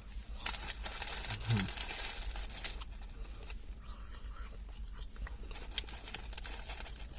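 Quiet crackling and rustling of eating fast food: paper food packaging being handled while the food is chewed, with a short low hum about a second and a half in.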